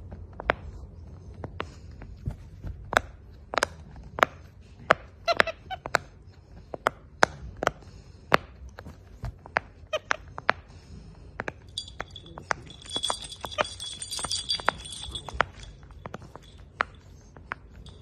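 Silicone pop-it fidget toy being pressed by a capuchin monkey: a string of soft clicking pops, irregular, about two a second. A high, thin squeaky sound joins in for a few seconds after the middle.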